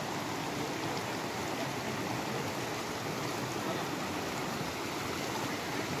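Rocky stream rushing steadily over and between boulders, an even splashing hiss of flowing water.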